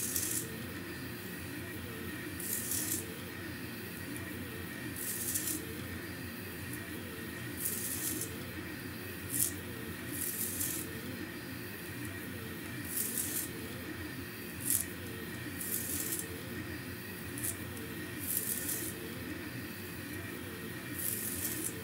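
Delta 3D printer's stepper motors running at speed as it works as a CNC flat coil winder, a steady whirring hum. Short hissing swishes recur about every two to three seconds as the roller head lays magnet wire around the oval coil.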